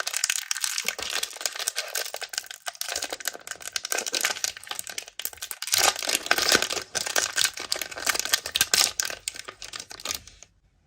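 Disney Doorables surprise-toy packaging being unwrapped by hand: plastic crinkling and tearing in a dense stream of rapid crackles that starts suddenly and cuts off near the end.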